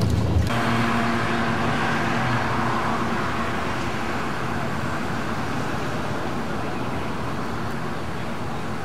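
Road traffic noise, a steady wash of passing cars that is loudest in the first few seconds and then eases off a little.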